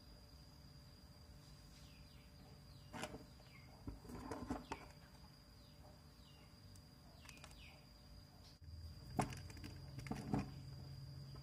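Faint clicks and rustles of a small metal lamp socket and wire being handled, the sharpest clicks about nine and ten seconds in. Behind them a steady high whine and short falling chirps repeating every second or two.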